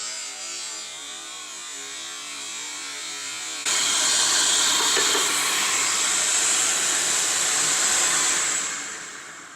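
Dust extractor running, then about a third of the way in a DeWalt DW779 sliding miter saw's motor starts suddenly and runs at speed with a high whine, the shop vacuum pulling on its dust shroud. Near the end the noise fades away as the saw winds down.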